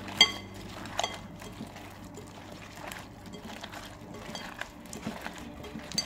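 Wet squelching of cauliflower florets being mixed by hand in a flour-and-cornflour batter in a glass bowl, with sharp clinks against the glass about a quarter second in, again about a second in, and near the end.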